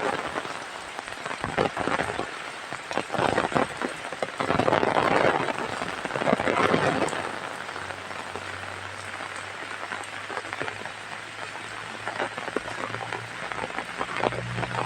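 Heavy rain falling and pattering on surfaces, in louder surges during the first half, then settling to a steadier patter. A faint low hum comes in about halfway through.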